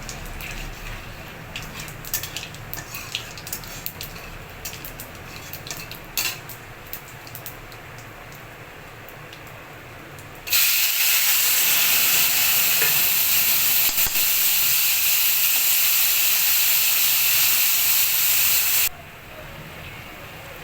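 Cooking in a pan: light clicks and taps of a utensil stirring, then about halfway a loud, steady sizzle of food frying that starts suddenly and cuts off sharply near the end.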